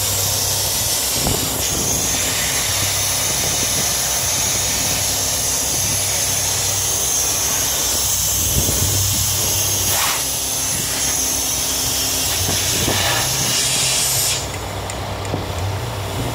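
Compressed air hissing steadily from the semi truck's air suspension line at the newly fitted frame air bag, cutting off suddenly about 14 seconds in. The truck's engine idles underneath as a low, steady hum.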